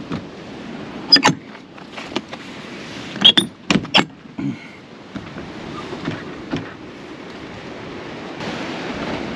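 Old RV door's metal paddle latch clicking and the door knocking against its frame: two sharp clicks about a second in, then four louder knocks in quick succession a few seconds in, as the latch is worked and the door pushed shut. Wind noise on the microphone throughout.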